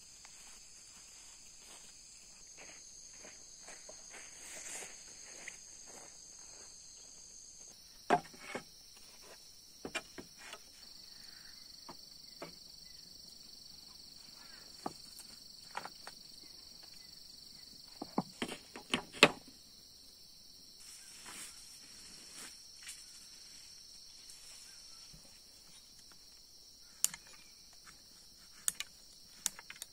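Steady high-pitched insect chorus of crickets or cicadas, with scattered footsteps and light knocks throughout. Near the end, a few sharp clicks as a cleaver cuts into a pumpkin on a wooden board.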